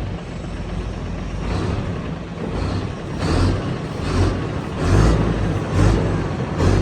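Heavy diesel engine of an excavator running under load, rising in short repeated surges about once a second.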